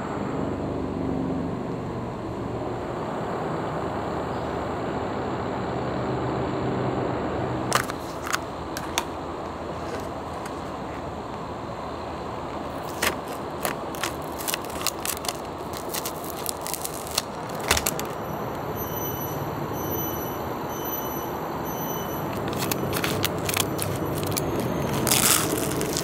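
Foil packaging of an instant biryani cup being handled: the foil seal peeled off the plastic cup and a foil sachet crinkled, torn and emptied, giving sharp crinkles and crackles. They start about a third of the way in and bunch up near the end, over a steady background noise.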